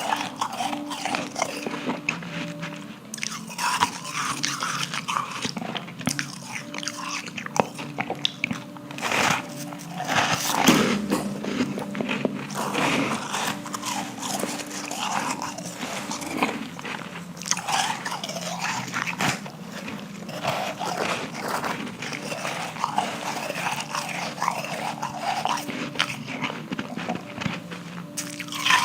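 Close-up crunching bites and chewing of hard refrozen powdery ice, irregular crisp crunches one after another.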